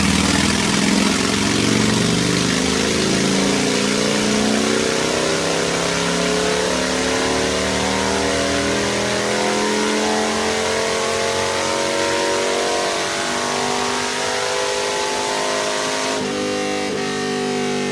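Harley-Davidson Fat Bob V-twin, fitted with Wood TW-222 cams and Vance & Hines Short Shots exhaust, on a dyno at full throttle: its pitch climbs slowly and steadily through the revs under load, and near the end the throttle closes and the sound drops to a lower, steadier note.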